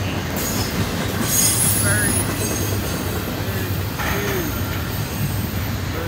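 Intermodal well cars of a freight train rolling past, their wheels making a steady rumble on the rails. A high-pitched wheel squeal rises above it about a second and a half in.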